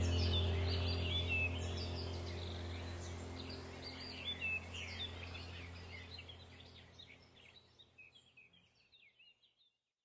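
Small birds chirping and twittering over a steady low hum, the whole sound fading out gradually until it is gone near the end.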